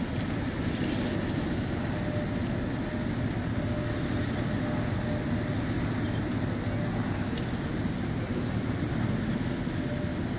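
Fire trucks' diesel engines running steadily while pumping water to the hoses and aerial ladder, a low even rumble.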